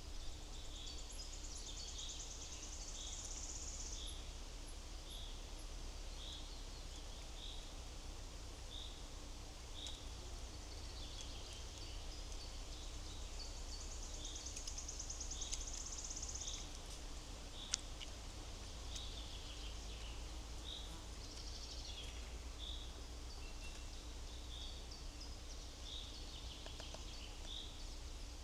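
Wild songbirds calling: a short high note repeated about once a second, with a fast, high trill near the start and again about halfway through. A sharp click sounds once, past the middle, over a steady low rumble.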